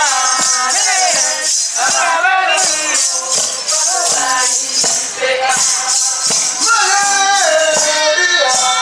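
Madi traditional Murre dance song: a group of voices singing over rhythmic shaken rattles.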